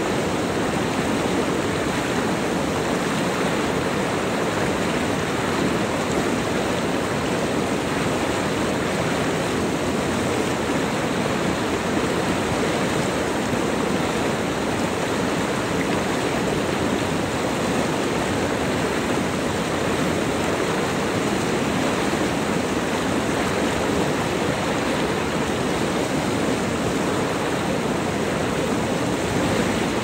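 Mountain river flowing: a steady, unbroken rush of water.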